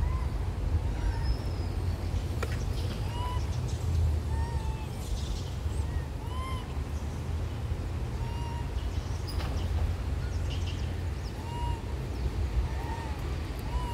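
Monkeys crying: short, high, arching cries repeated about once a second, with a lull after the middle, over a steady low rumble.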